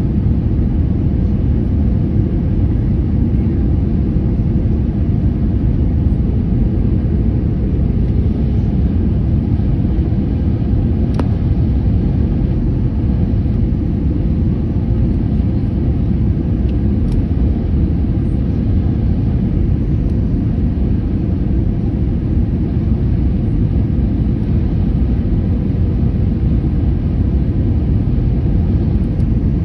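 Jet airliner cabin noise in flight: a steady, loud rumble of engines and airflow that does not change.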